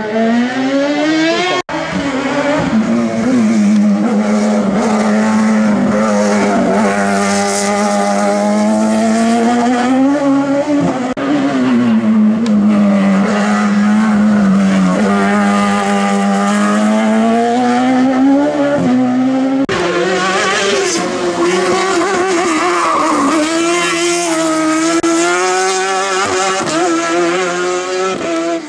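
Competition car engine at high revs, its pitch repeatedly climbing and dropping as it accelerates, shifts and brakes through the slalom's chicanes. The sound breaks off abruptly twice, near the start and about two-thirds through, and picks up again at a different pitch.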